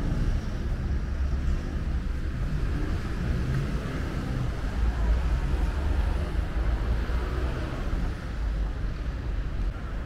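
Outdoor city background: wind buffeting the microphone in a low, gusty rumble, with the hum of distant traffic.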